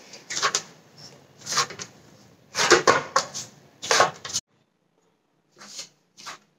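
Stiff whole-wheat dough being kneaded by hand in a stainless steel bowl: soft squishing thuds as the dough is pressed and folded against the metal, about one a second, with a short pause and two fainter strokes near the end.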